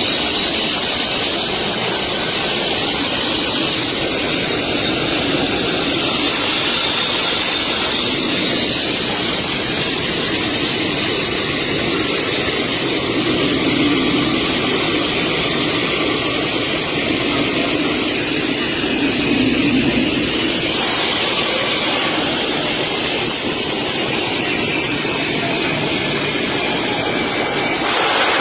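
Steady loud noise of a C-17 military transport jet's turbofan engines and rushing air, heard from on the outside of the aircraft as it moves along the runway, with a faint high whine.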